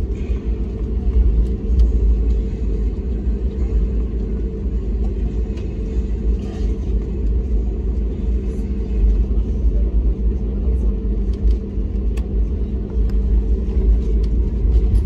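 Cabin noise inside an Airbus A320neo taxiing after landing: a steady low rumble from its CFM LEAP-1A engines at idle and the wheels rolling over the taxiway, with faint scattered clicks.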